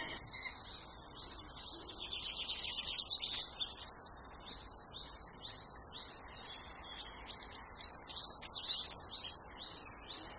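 Small birds chirping: a long run of short, high chirps, each falling in pitch, a little under two a second, over a faint steady hiss.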